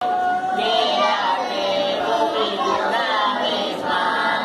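A group of children singing together, unaccompanied.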